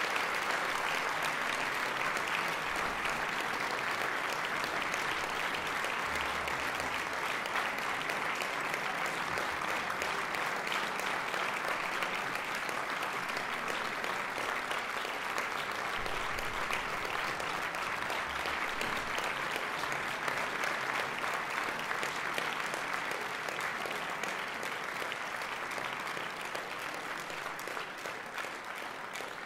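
Audience applauding: steady, dense clapping that slowly tails off over the last few seconds.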